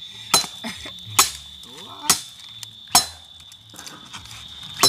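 Knife chopping salad vegetables: five sharp, clinking knocks spaced about a second apart. A steady high insect trill runs underneath.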